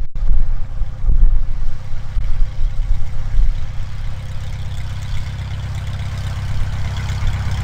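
JMB VL-3 Evolution light aircraft's engine and propeller running at low power on approach, growing louder near the end as the plane nears. Wind buffets the microphone in the first second or so.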